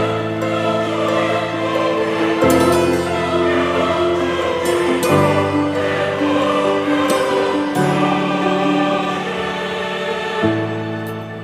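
Background music: choral-style chords with sustained voices over a held bass that changes about every two and a half seconds.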